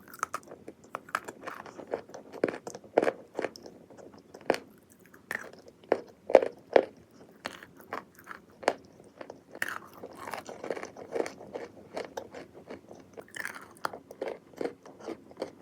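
Wet, chalky clay being chewed close to the microphone: a run of sharp, irregular crunches, several a second, as the clay breaks down into a creamy paste.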